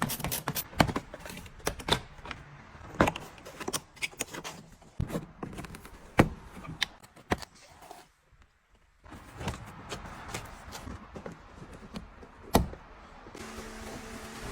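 Irregular clicks and knocks of hard car-interior parts being handled, with a short pause about eight seconds in. Near the end a small motor starts and runs with a steady hum.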